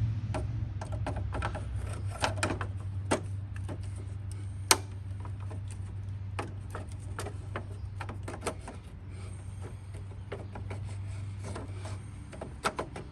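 Irregular small clicks and knocks of hands and tools working the old ignition switch loose from a John Deere X320 riding mower's dash, over a steady low hum. The sharpest knock comes about halfway through.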